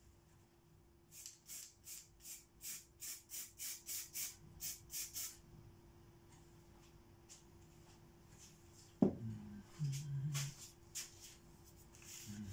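Aerosol spray-paint can being shaken, its mixing ball rattling in quick strokes of about four a second for some four seconds, getting louder. Later there is a sharp knock, then a brief low voice sound and a few fainter strokes.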